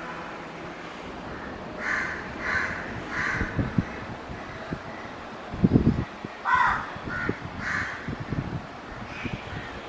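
Crows cawing: a run of three caws about two seconds in and another three a little after six seconds. Low, dull thumps sound between them, the loudest just before the second run.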